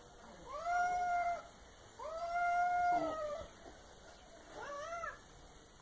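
Orange tabby cat crying out: two long drawn-out calls of about a second each, then a shorter one that rises and falls near the end.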